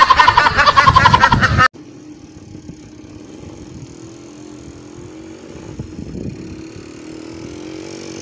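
A duck quacking rapidly and loudly for about two seconds, cutting off suddenly. Then a much quieter outdoor background with a steady low engine-like hum.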